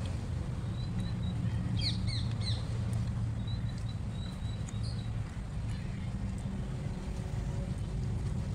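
Outdoor ambience: birds chirping, with a quick run of calls about two seconds in and faint thin whistles, over a steady low hum.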